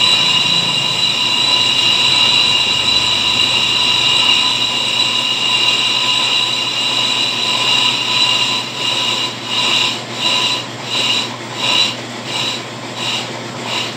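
Brake lathe spinning a Toyota Fortuner disc brake rotor while the cutting bit skims its face: a steady high-pitched squeal over the machine's low running hum. About eight seconds in, the squeal starts pulsing about twice a second.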